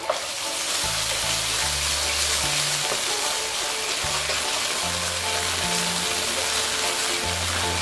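Minced garlic and ginger frying in oil with soy and oyster sauce in a nonstick pan, sizzling steadily as it is stirred with a wooden spoon. Background music with low bass notes plays underneath.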